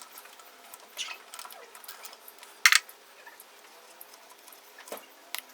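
Metal clinks of a wrench loosening the bowl nut (the main jet) under a Tecumseh lawn mower carburetor: a few sharp clicks, the loudest about two and a half seconds in.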